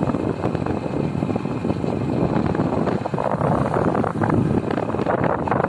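Steady rush of wind buffeting the microphone, mixed with the running noise of a moving vehicle on a paved road.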